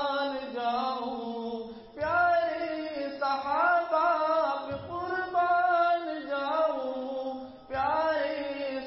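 A solo voice singing an Urdu naat in praise of the Prophet Muhammad without instruments, in long, drawn-out wavering notes with two brief breaths between phrases.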